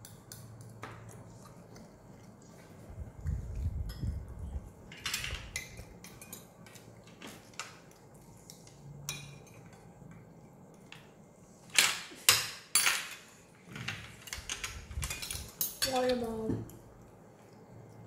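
Cutlery clinking and scraping on plates and bowls as children eat, in scattered sharp clicks that cluster in quick runs around two-thirds of the way through. A low knock or two early on, and a short child's vocal sound near the end.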